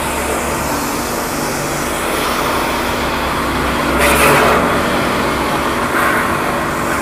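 Portable electric pressure washer running, its motor humming steadily under the hiss of the water jet spraying onto a car's bonnet and front. The spray noise swells about four seconds in and again briefly near the end.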